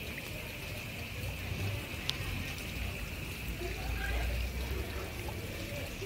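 Heavy rain falling onto standing floodwater, a steady splashing patter, with one sharp tick about two seconds in.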